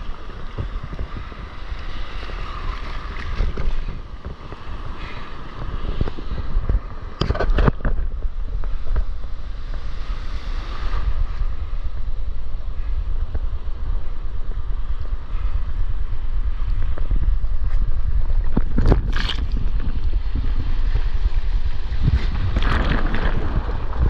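Whitewater surf rushing around a stand-up paddleboard, heard from a camera at water level, with wind buffeting the microphone in a constant low rumble. A few sharp splashes of water hit the board and camera, about a third of the way in, about three-quarters in and near the end.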